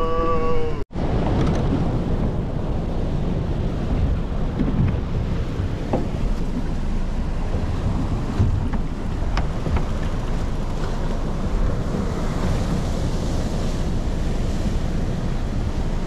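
Wind buffeting the microphone over the rush of sea surf: a steady, low-heavy roar of noise that begins after a brief dropout about a second in.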